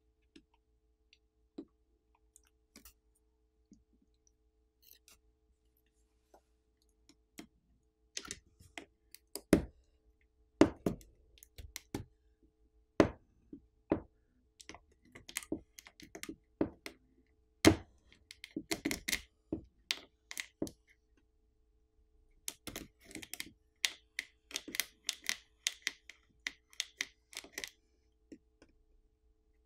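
Small hand tools clicking, tapping and scraping against a smartphone's internals while the glued-in battery is worked loose. A few faint clicks at first, then from about eight seconds in a busy, irregular run of clicks and knocks, a few of them sharp and loud.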